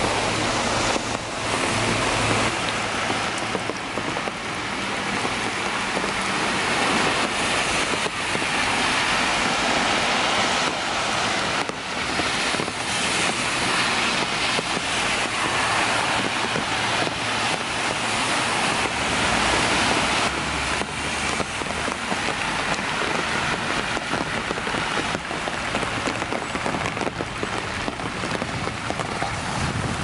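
Steady rain falling on wet pavement and fallen leaves, with cars passing on the wet road.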